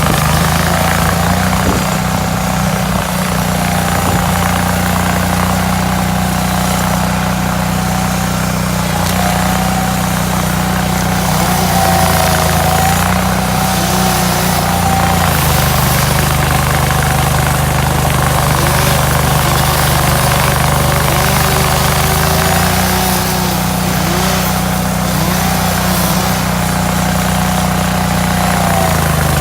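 Hydraulic stump grinder's engine running steadily. Its pitch drops a little about halfway through and comes back up later.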